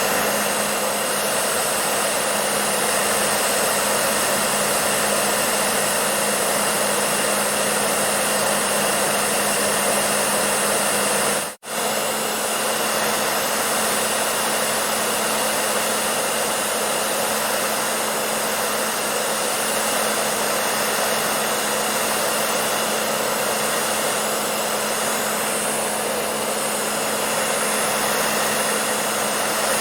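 Hair dryer running steadily: a constant rush of blown air over a steady motor hum. The sound drops out for an instant about eleven and a half seconds in, then carries on unchanged.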